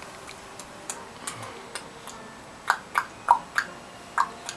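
Light, irregular taps and knocks of small hands handling things on a tabletop: a few faint ones, then about seven sharper ones in the second half.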